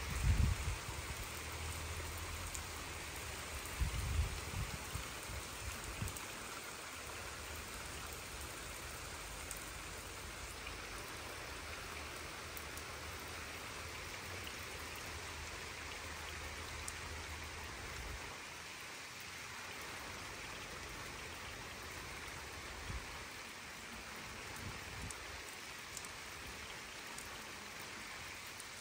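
Steady rain falling on a flooded earthen courtyard, with a few low bumps in the first few seconds.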